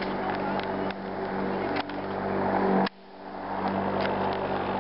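A steady motor hum, like an engine running, under outdoor background noise. It drops away sharply about three seconds in, then builds back up.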